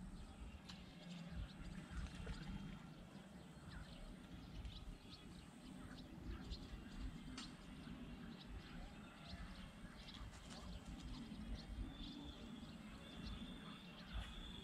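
Faint outdoor evening ambience: scattered short bird chirps over a low rumble, with a thin steady high tone and, near the end, a short call repeated several times.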